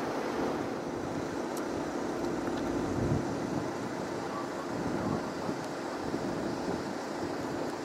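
Steady drone of aircraft engine noise, with gusts of wind rumbling on the microphone a few times.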